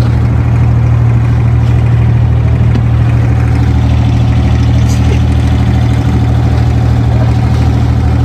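Abra water taxi's inboard diesel engine running with a steady, low drone, heard from aboard the boat.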